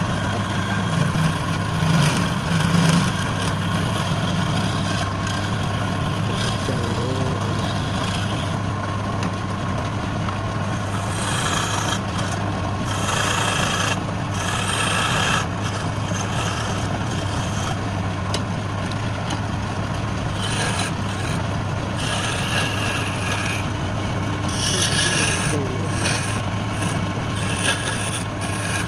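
Wood lathe running with a steady motor hum, while a tool scrapes the spinning workpiece in irregular hissing passes, heaviest in the middle and toward the end.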